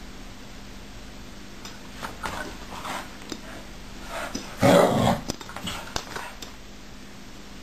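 Small white dog growling in short bouts, with a louder growl about five seconds in, squabbling with a cat over a pet bed.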